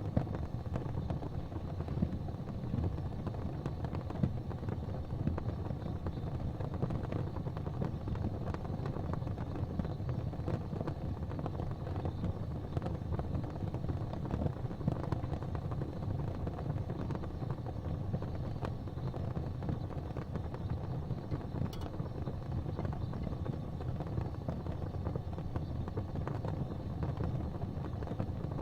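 Gas fireplace flames burning with a steady low rumble, with a few faint clicks.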